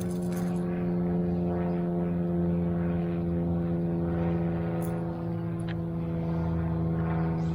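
A steady motor drone holding one even pitch, with a few faint clicks about five and six seconds in.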